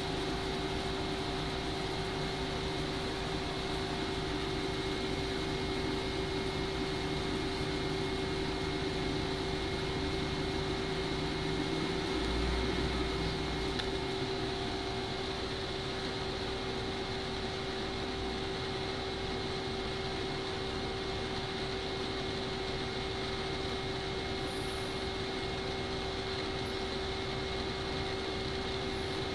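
CNC lathe running a finishing pass on the outside profile of a turned part: a steady machine hum with several held tones over the hiss of flood coolant spraying on the work. A lower tone drops out about twelve seconds in, with a brief low rumble.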